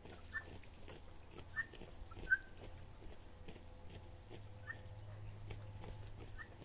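Short, high animal calls, about five scattered at irregular gaps, the loudest about two seconds in.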